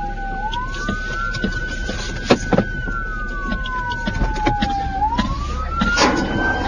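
Police car siren on a slow wail, its pitch falling and rising again about every five seconds, over a steady high tone that stops about two-thirds of the way through. Two sharp knocks come a little past two seconds in, and an engine rumble runs beneath.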